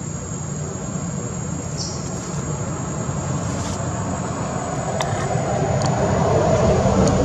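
Steady low rumbling background noise that grows louder in the second half, with a thin, high, steady whine above it and a few faint clicks.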